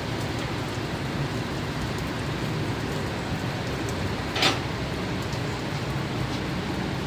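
Steady rain falling, with one short sharp crack about four and a half seconds in.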